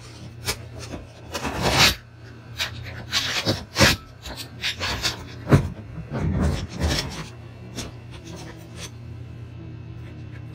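Irregular rubbing and scraping sounds, a string of short swishes, over a steady low hum. The scraping stops about two seconds before the end, leaving only the hum.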